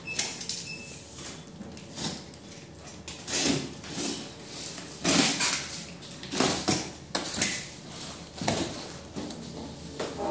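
Spin bike parts being handled during assembly: an irregular series of scrapes, slides and knocks.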